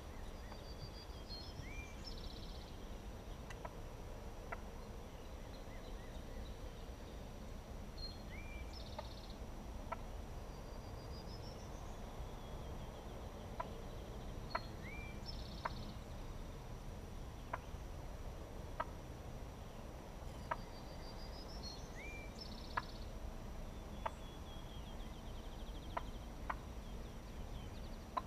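A songbird outdoors repeats the same short song about every six or seven seconds: a quick run of rising high notes ending in a buzzy trill, with a short upward whistle between phrases. A steady low rumble runs underneath, and a scattering of short sharp clicks are the loudest sounds.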